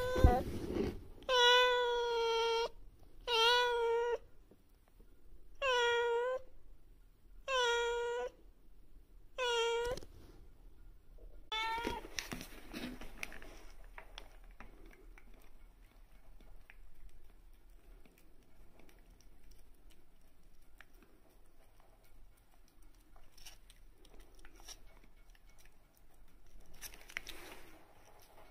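A black domestic cat meowing repeatedly: about six meows in the first ten seconds, the first the longest at about a second and a half, the rest shorter.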